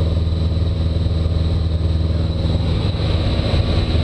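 Piper Cherokee's four-cylinder engine and propeller droning steadily in cruise, heard inside the cabin, with a thin steady high tone above it.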